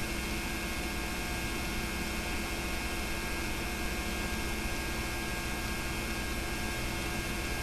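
Steady electrical mains hum with hiss, the background noise of the transfer of a silent home movie. No other sound is heard.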